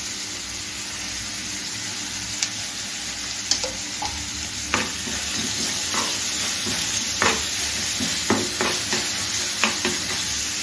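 Sliced onions sizzling steadily in hot oil and ghee in a pan, sautéing. From about two seconds in, a spoon stirs them, scraping and tapping against the pan several times.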